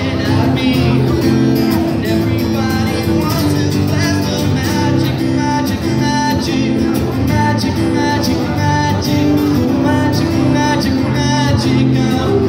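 Live acoustic guitar with a man singing into a microphone, amplified through a PA speaker.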